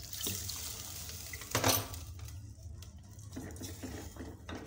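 Water pouring from a jug into an aluminium pot of smoked fish, with one brief louder noise about a second and a half in. Near the end a wooden spoon starts stirring and scraping in the pot.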